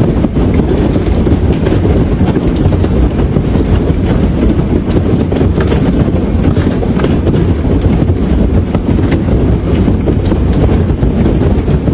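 Large hailstones pounding down in a storm: a steady heavy roar with many sharp, irregular impacts cracking through it, and wind buffeting the microphone.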